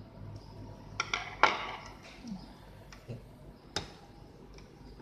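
Small sharp clicks and taps from laptop parts and tools being handled: a quick cluster about a second in, the loudest click just after, and one more sharp click near the end.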